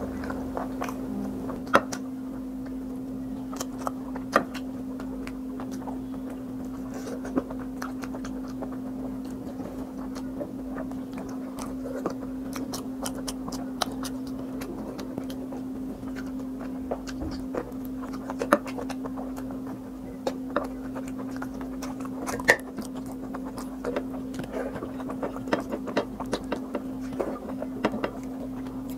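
Close-miked eating sounds: fingers picking and scraping food off a plate, making scattered small clicks and soft scrapes, over a steady low hum.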